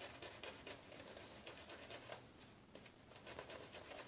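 Badger shaving brush working soap lather with a little added water: faint, irregular wet crackling and squishing.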